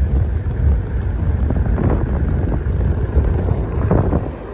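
Wind buffeting the microphone as the camera travels quickly downhill, a loud low rumble with no steady pitch, easing off near the end.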